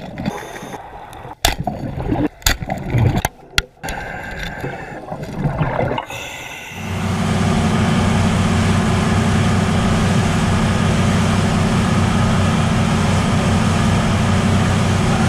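Boat motor running steadily with rushing water, settling in about a third of the way through after a few seconds of choppy sound broken by sharp knocks.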